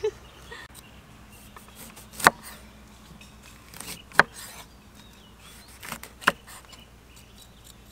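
Kitchen knife cutting limes in half on a wooden chopping board: three sharp knocks of the blade hitting the board, about two seconds apart, each with a softer cut just before it.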